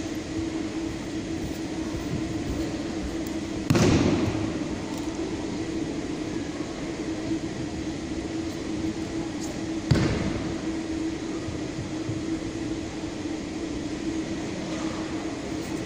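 Two loud thuds about six seconds apart, each echoing through a large hall, over a steady hum: an aikido partner taking breakfalls, slapping down onto tatami mats as he is thrown.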